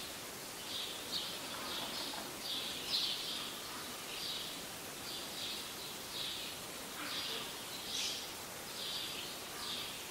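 Short high chirps repeating about twice a second, somewhat irregularly, over a faint steady hiss.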